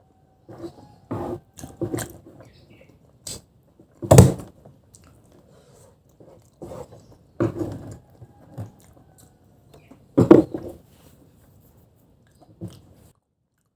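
Close-miked chewing and eating mouth noises coming in irregular spells, with louder sudden smacks about four seconds in and again about ten seconds in.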